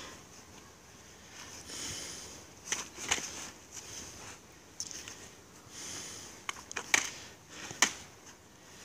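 Training swords clacking together in sparring: about half a dozen sharp, irregular knocks, the loudest two near the end, with softer rustling between the exchanges.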